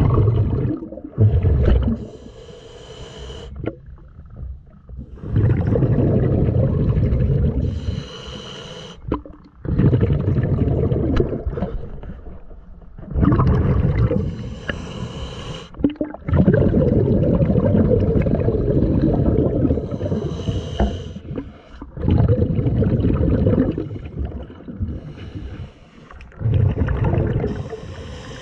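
Scuba diver breathing through a regulator underwater: a hissing inhale with a faint whistle alternates with a longer, louder rush of exhaled bubbles, about one breath every five seconds.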